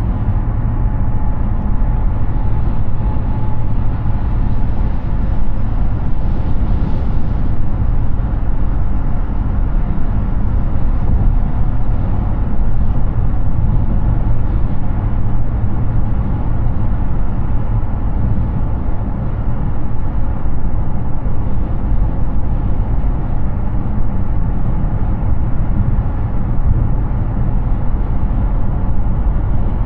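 Steady road and tyre noise of a Hyundai Ioniq 6 electric car cruising at highway speed: an even, low rumble with no engine note.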